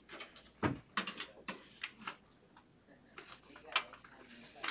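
Irregular light clicks and knocks from things being handled on a desk, about ten in a few seconds. One knock about two-thirds of a second in has a dull low thud.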